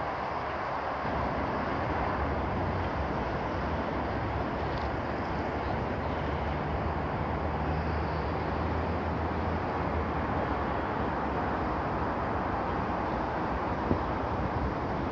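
Steady outdoor city ambience, a continuous hum of road traffic, with one brief knock near the end.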